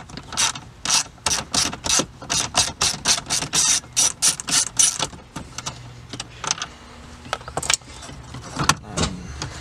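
A socket ratchet wrench clicking in quick, even strokes, about three to four a second, for around five seconds. After that come a few fainter scattered clicks and knocks.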